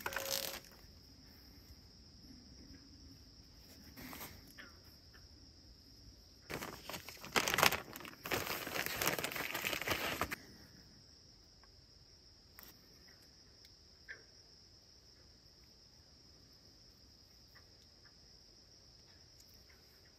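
Plastic zip-lock bag crinkling and rustling in the hands for about four seconds in the middle, with a shorter rustle earlier, over a steady high chirring of crickets.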